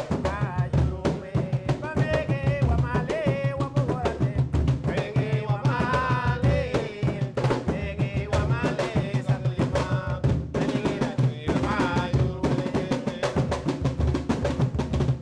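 Garifuna hand drums, the deep segundo and the lead primera, playing a hugu hugu rhythm in a dense, steady run of strokes.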